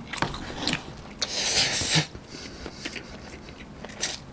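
A man slurping and chewing stir-fried instant cup noodles (Shin Ramyun fried noodles) off a fork. There is one loud hissing slurp about a second in, followed by quieter chewing with small wet ticks.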